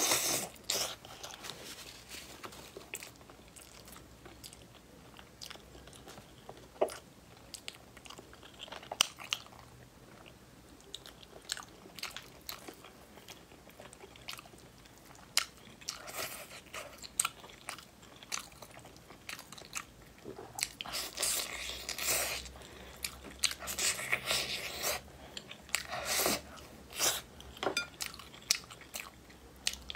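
Close-up eating sounds of braised chicken pieces being bitten, chewed and pulled apart by hand: wet chewing with scattered sharp clicks, and busier clusters in the second half.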